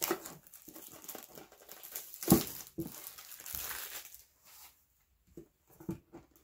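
Plastic shrink wrap crinkling and tearing as it is pulled off a metal Pokémon card tin, with one sharp crack about two and a half seconds in. The crinkling stops after about four and a half seconds, leaving a few faint knocks of the tin being handled.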